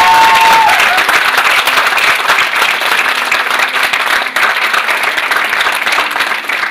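Theatre audience applauding a bow, dense clapping that slowly tapers off toward the end.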